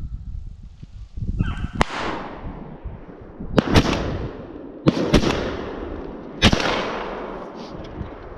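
Rapid buckshot fire from a Stoeger semi-automatic shotgun: six blasts, one about two seconds in, then two quick pairs and a last one, each followed by a long echo rolling off the tree lines. A hound bays briefly just before the first blast.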